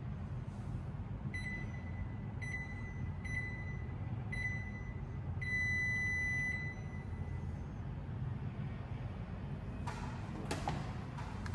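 Canali treadmill console beeping a start countdown: four short electronic beeps about a second apart, then one longer beep as it signals go and the belt starts. A steady low hum runs underneath, and a few knocks come near the end.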